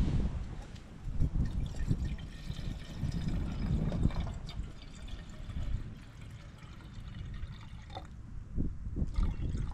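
Water being poured into a small can set on a stick stove to be boiled, over a low uneven rumble.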